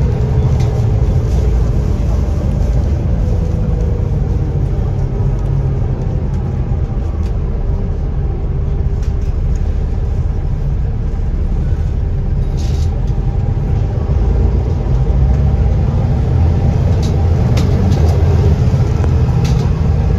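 Wright Eclipse Gemini double-decker bus, a Volvo B7TL, heard from inside the lower deck while under way: steady low engine and road rumble with a faint whine over it. A few brief clicks or rattles from the body come about halfway through and near the end.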